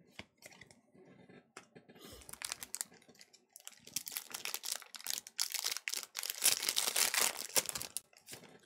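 Foil wrapper of a Pokémon Evolutions booster pack being crinkled and torn open by hand, after a few light clicks of cards being handled.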